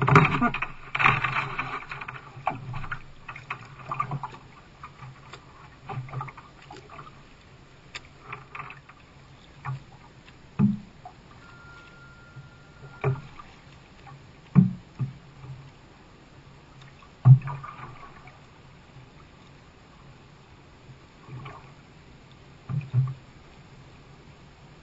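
Canoe paddling on open water. At first there is a loud scraping rattle as the round plastic deck hatch cover is worked by hand. After that come quiet paddle strokes with a dull knock every couple of seconds, the paddle bumping the canoe's hull.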